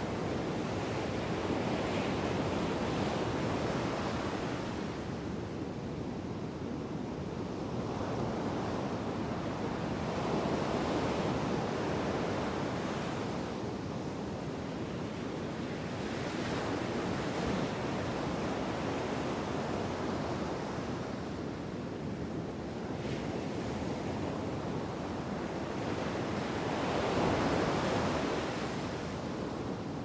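Storm surf: big waves breaking and rushing up the beach in a continuous wash that swells with each breaker every several seconds, the loudest near the end. Wind buffets the microphone.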